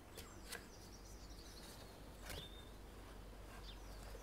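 Faint handling of a cardboard perfume box by gloved fingers: a few soft clicks and taps as the end flap is worked open, over a quiet steady hiss.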